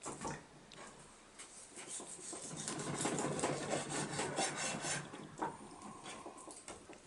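Rough rubbing and rasping of kitchen preparation work, with a few knocks. It is loudest for about two and a half seconds in the middle, then eases off.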